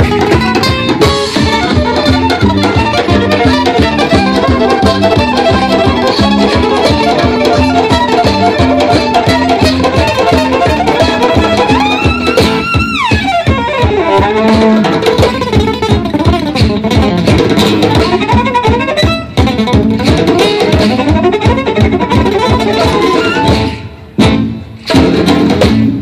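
Live Romani-style instrumental music: a violin leads over strummed acoustic guitar, with upright bass and hand drum beneath. About halfway through there is a long falling glide in pitch, and near the end the playing stops briefly and starts again.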